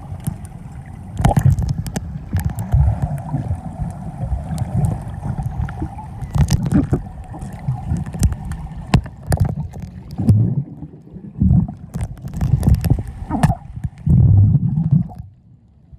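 Muffled underwater pool sound heard through a submerged camera: a low, uneven rumbling and sloshing of water with scattered sharp clicks and knocks. It drops off sharply shortly before the end.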